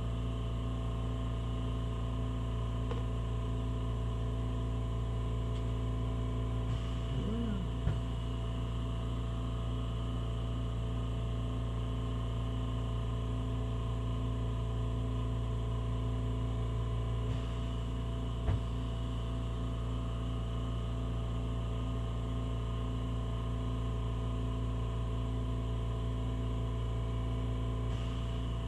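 Oxy-propane torch burning steadily, a constant low drone with a few faint clicks, its flame playing on a cornstarch-and-glue fire-resistant test sample.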